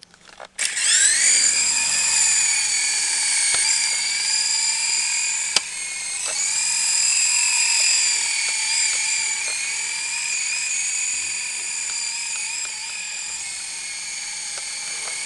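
Syma S033G coaxial RC helicopter's small electric motors and rotors spooling up with a rising whine about half a second in, then a steady high-pitched whine in flight, its pitch wavering as the throttle changes. A single sharp click about five and a half seconds in.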